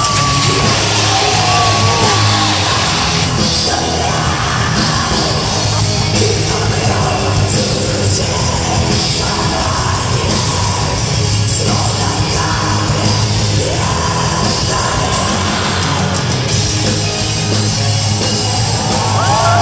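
Heavy metal band playing live, a dense mix of distorted guitars, bass and drums. Sung vocal lines come in just after the start and again near the end.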